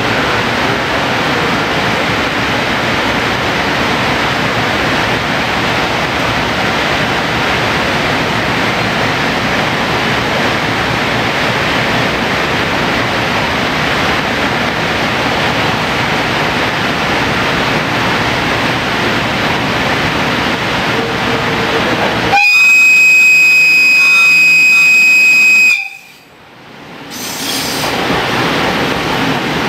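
Steady noise, then about three quarters of the way in the EF510 electric locomotive's horn sounds one long, very loud, high steady note for about three seconds: the departure signal. Right after the horn the level drops away sharply for a moment before the steady noise returns.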